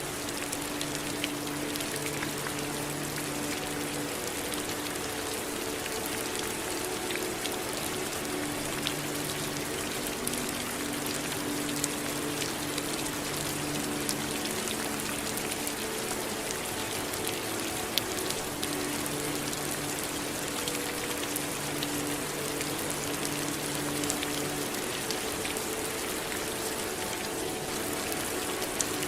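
Steady rain falling: a dense, even hiss with scattered sharper drops striking a surface, mixed with running water.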